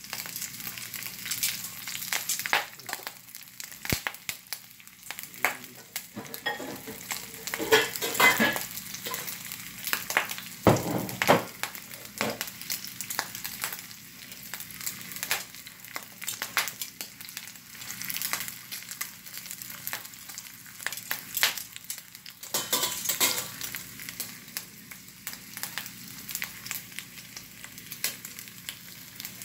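Chunks of meat searing in hot oil in a cast-iron skillet: a steady sizzle with frequent irregular crackling pops.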